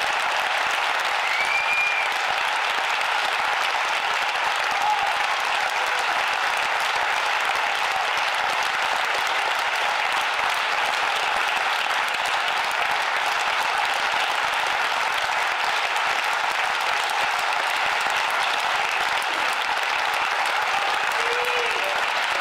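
A theatre audience applauding, a dense, steady clapping that holds at one level throughout.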